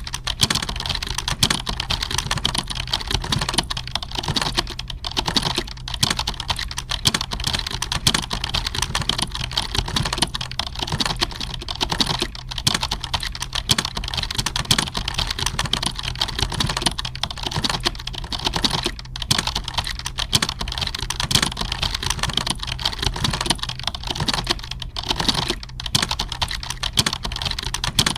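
Computer keyboard typing: a dense, unbroken clatter of keystrokes with no pauses, over a steady low hum.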